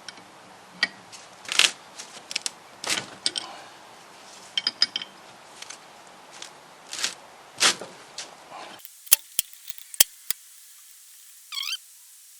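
Clinks, knocks and scrapes of a socket and wrench on the cylinder head as its spark plugs are undone. About nine seconds in, the background drops away to a few sharp clicks and a short, wavering metallic squeak near the end.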